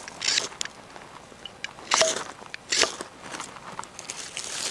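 Small fire of feather-stick curls and slightly wet wood crackling, with irregular sharp pops and a few short hissing bursts.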